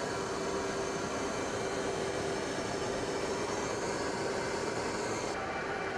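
Steady drone of aircraft engines in flight, an even rushing noise with a constant hum under it; the highest hiss thins out near the end.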